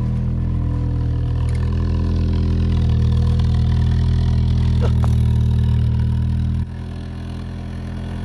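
Mk1 Volkswagen Golf's inline-four engine idling steadily at the twin-tip exhaust, shortly after a cold start. The deep rumble drops suddenly about two-thirds of the way through.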